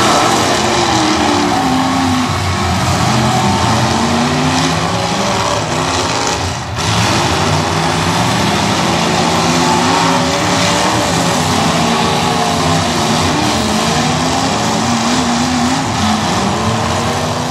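Several demolition derby cars' engines revving up and down at once, overlapping as the cars drive and ram each other on dirt; the sound briefly drops out about seven seconds in.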